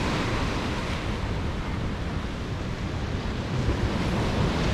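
Rough, fast-flowing seawater rushing and washing, with wind buffeting the microphone.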